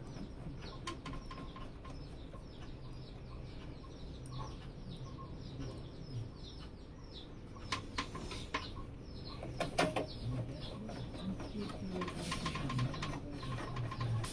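Small birds chirping in quick, rapid runs of short falling notes, with a few sharp clicks and knocks about eight and ten seconds in.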